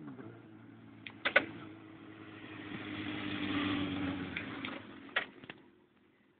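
Suzuki GSX-R1000 inline-four sport-bike engine running as the motorcycle rides past, growing to its loudest about three and a half seconds in and then fading away. A few sharp clicks sound just over a second in and again near the end.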